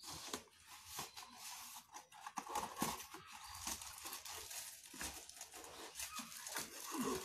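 Cardboard box being opened and handled, with the plastic wrapping of the tripod parts inside crinkling as they are pulled out: a continuous run of rustles, small crackles and scrapes.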